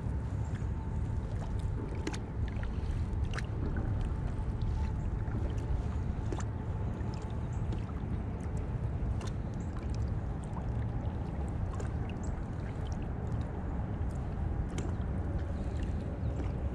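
Kayak moving over calm water while trolling: a steady low rumble of water and wind noise, with scattered light clicks.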